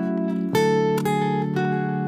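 Background music: an acoustic guitar picking single notes about twice a second over a held bass.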